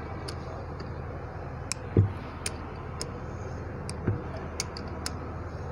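Scattered light metallic clicks of hand tools working the bolts on a bus AC compressor's cylinder head, with a dull knock about two seconds in and a smaller one about four seconds in, over a steady low hum.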